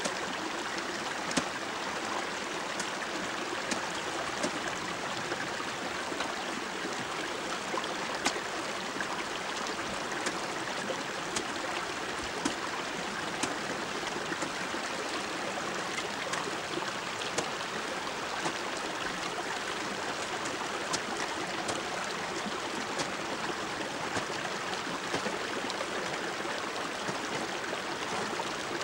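Steady rush of running water, with sharp ticks every second or two from crampons and an ice axe biting into glacier ice.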